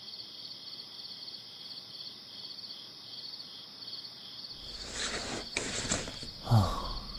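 Crickets chirping steadily in a night ambience. Near the end come a few short rustling noises and a quick falling swoop.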